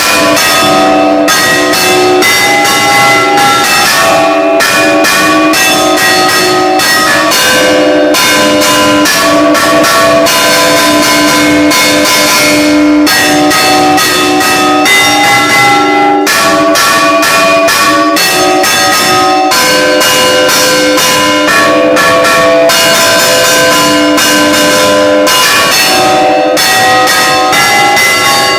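Church bells of several different pitches struck in quick succession, several strokes a second, in a continuous loud peal that starts abruptly.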